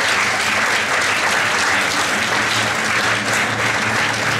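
A large audience applauding: steady, sustained clapping from many hands.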